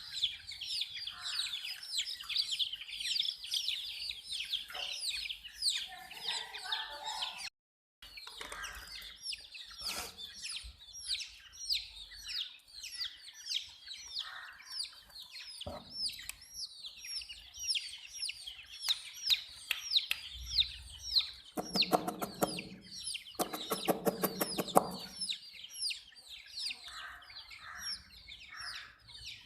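Many baby chicks peeping continuously in quick, high, falling chirps. The sound cuts out for a moment about a quarter of the way in. About three-quarters of the way through, two longer, lower calls of over a second each rise above the peeping.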